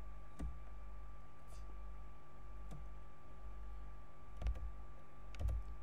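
A few separate computer keyboard key clicks, spaced unevenly, over a steady low electrical hum with a faint thin high tone.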